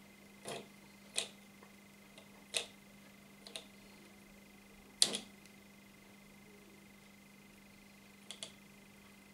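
Fingers handling thin nylon fishing line and a small hook while tying the hook on: about half a dozen short, sharp clicks and scrapes at uneven intervals, the loudest about five seconds in, one a quick double near the end.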